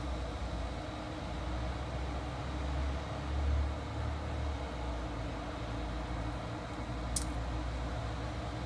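Steady low background rumble with a faint machine-like hum. There is a brief, faint high tick about seven seconds in.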